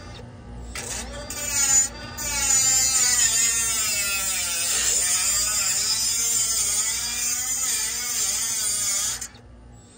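Mini grinder cutting through the condenser coil's sheet-steel tube plate beside a copper tube. The motor's pitch dips and rises as the disc bites. It starts about a second in, breaks off briefly near two seconds, and stops just after nine seconds.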